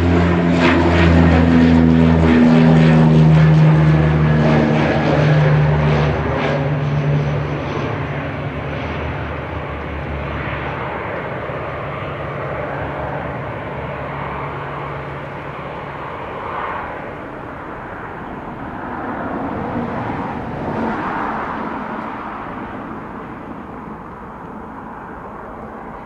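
ATR 72 turboprop climbing away after takeoff. Its propellers give a low drone with a steady hum, loudest in the first few seconds, which then fades to a dwindling rumble as the aircraft recedes.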